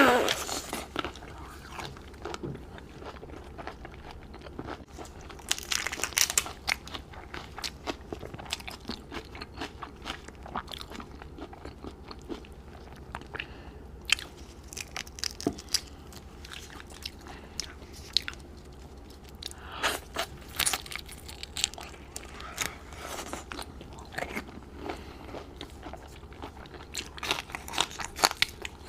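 A person biting and chewing crunchy food close to the microphone, in bursts of sharp crunches with quieter chewing between them.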